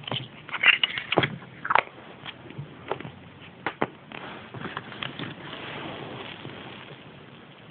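Plastic packaging being handled and unwrapped: a quick run of sharp clicks and crinkles, then a softer, steady rustle from about four seconds in.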